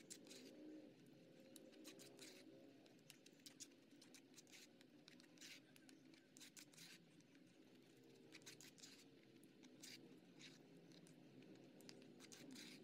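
Faint, irregular scraping and clicking of a metal spoon stirring a wet minced-chicken and egg filling in a plastic bowl.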